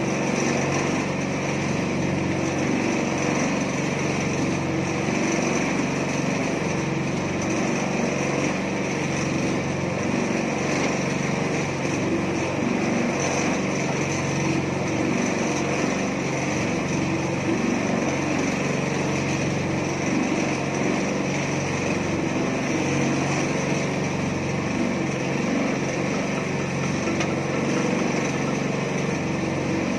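Small petrol engine of a mini concrete mixer running steadily at a constant speed.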